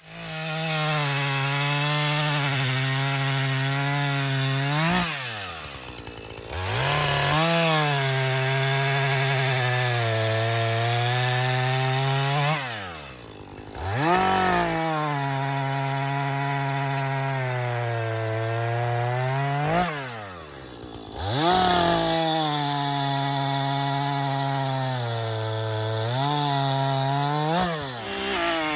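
Husqvarna two-stroke chainsaw bucking a downed sycamore trunk, running at full revs under load. Three times the revs fall away and then climb back as the saw is throttled up again.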